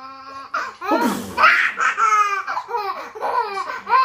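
A baby laughing hard in repeated bursts, about two a second, each falling in pitch. The belly laughs are set off by an adult's fake sneezes.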